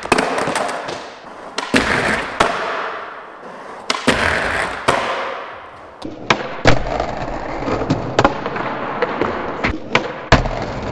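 Titanium skateboard trucks grinding along a ledge: several hissing, scraping grinds of a second or two each, broken by sharp clacks of the board popping and landing.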